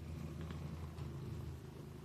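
Kitten purring steadily, a low continuous rumble, with two faint ticks about half a second and one second in.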